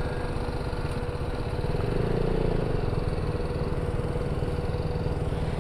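Motorcycle engine running steadily while riding, a low even pulse with a steady hum over it, swelling slightly about two seconds in.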